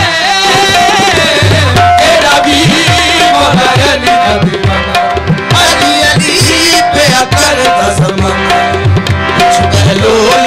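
Qawwali music: tabla with sliding bass strokes and harmonium, a short harmonium note struck again and again in a steady rhythm.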